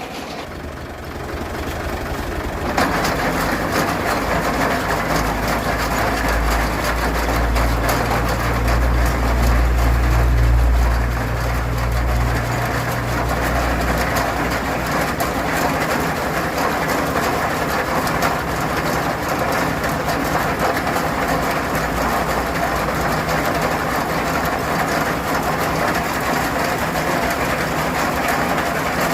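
Tractor engine running steadily, louder from about three seconds in, with a deeper low rumble between about six and fourteen seconds in.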